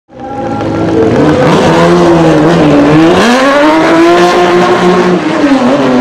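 Porsche 911 SC race car's air-cooled flat-six revving hard: the pitch sags, climbs sharply about halfway through and holds high, then drops off again near the end.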